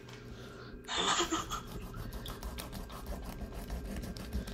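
Small kitchen knife sawing and pressing through the neck bone of a brown chub (Kyphosus bigibbus) on a plastic cutting board, a rough rasping with many small irregular clicks as the blade grinds at bone too hard to chop through easily.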